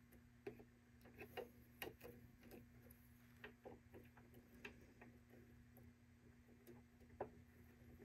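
Faint, irregular small clicks and taps as fresh needles are fitted into the needle clamp of a Baby Lock Evolution serger, over a low steady hum.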